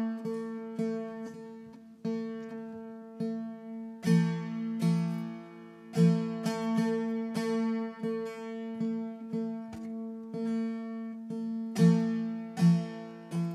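Tambura plucked string by string, each pluck ringing on into a sustained, overtone-rich drone. This is the instrumental drone that opens the bhajan before the voice comes in.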